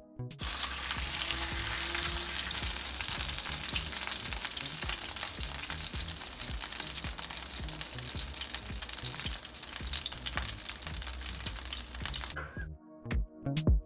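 Seasoned snapper fillet frying in hot oil: a dense, steady sizzle full of fine crackles. It cuts off suddenly near the end, and music with a beat takes over.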